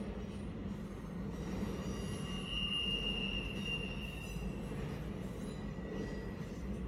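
Double-stack intermodal freight train rolling past with a steady low rumble from its wheels and well cars. A high, steady wheel squeal rises over it for about two seconds in the middle, then fades.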